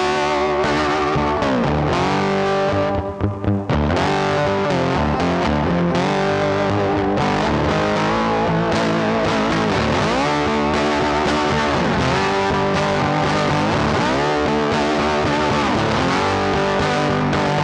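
Background music: a rock track led by distorted electric guitar with effects, its bent notes sliding in pitch every couple of seconds, with a bass line and a brief break about three seconds in.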